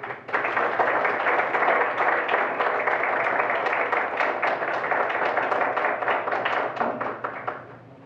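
Audience applause from a room full of people, dense clapping that dies away near the end.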